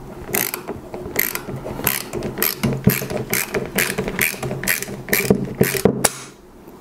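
Quarter-inch-drive socket ratchet clicking in short back-and-forth strokes, about three a second, as it works a rifle's rear action screw loose. The clicking stops a little before the end.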